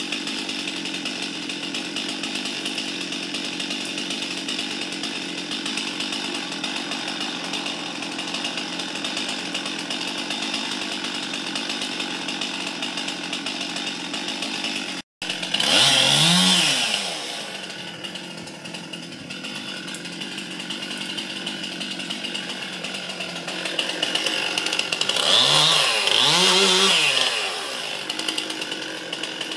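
Chainsaw running at a steady idle, then revved up hard twice, once about halfway through and again near the end, its pitch climbing and falling back each time.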